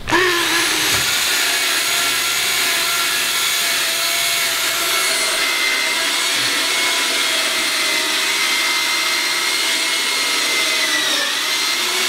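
Corded electric drill with a hole saw, cutting a round hole through a wall panel for an outlet box. The motor spins up at the start, runs steadily under load, and dips slightly in pitch near the end.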